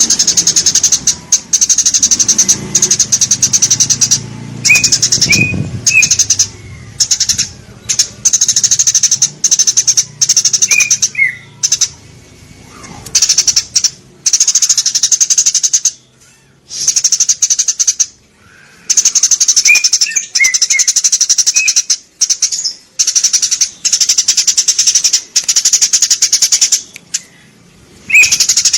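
Eurasian tree sparrows chirping and chattering. A dense, high chatter comes in bouts of a second or two with short breaks between them, and separate short chirps sound now and then underneath.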